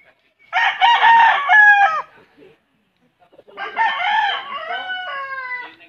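Gamecock roosters crowing twice: a crow about half a second in that ends on a falling note, then a second, longer crow starting around three and a half seconds in that trails off in drawn-out falling notes.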